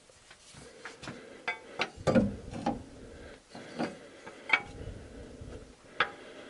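Pry bar clicking, knocking and scraping against the edge of a Honda CVT oil pan as it is levered from the transmission case, in irregular strikes with a few duller knocks. The pan, probably stuck on its old sealant, is not yet coming free.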